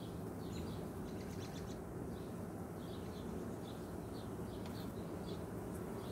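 Honey bees humming steadily around an open hive, with a bird chirping over and over in the background, mostly in the second half.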